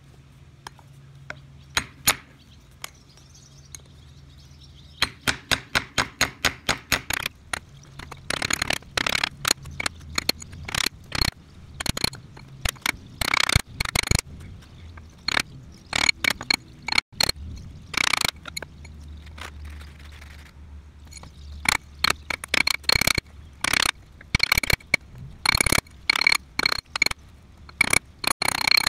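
Hammer blows on a quarter seated on a steel ring mandrel, shaping the coin into a ring. The blows come in quick runs of several a second with short pauses, and many of the later ones leave a metallic ring.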